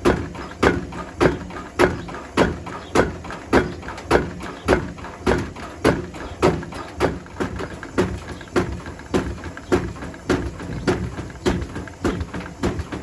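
Bricks tumbling in the drum of a Hotpoint Smart Tech WMFUG742 washing machine on a wool wash, knocking against the drum about twice a second in a steady rhythm.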